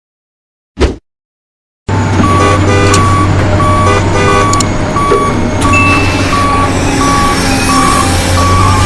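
Remote-control toy construction vehicle's sound effects: a steady electronic engine hum with a reversing beep repeating about one and a half times a second, starting about two seconds in after a short click.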